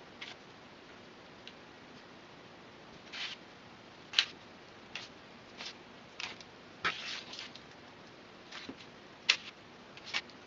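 Craft knife blade cutting into a flattened barley-straw sheet: short, irregular scratches and clicks, the sharpest about four seconds and nine seconds in.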